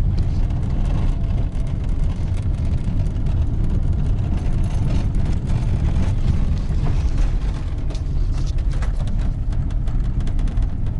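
Road and tyre rumble inside a Lada Granta liftback's cabin on a rough road, with many short creaks and ticks from the door pillars as the body flexes. The owner hopes these body 'crickets' are just the door rubber seals rubbing in the openings.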